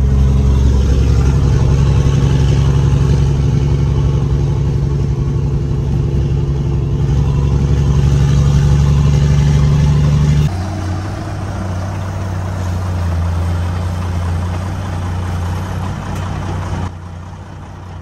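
Truck diesel engine running steadily, heard from inside the cab. Its pitch and loudness step down about ten seconds in, and the sound drops again near the end.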